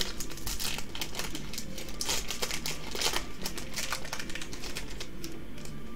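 Foil Yu-Gi-Oh booster pack wrapper crinkling as it is torn open and peeled back from the cards: a dense, irregular run of crackles.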